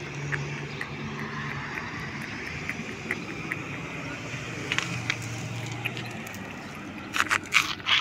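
A steady low engine hum, shifting slightly in pitch partway through, with a cluster of sharp clicks and knocks near the end.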